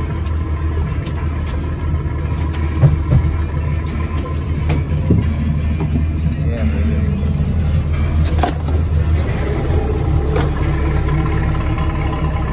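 Lobster boat's engine running steadily, a deep drone, with a few knocks on deck.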